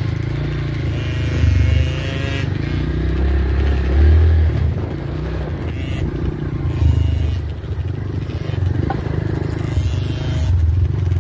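Dirt bike engine running under way, its revs rising and falling several times as it is ridden.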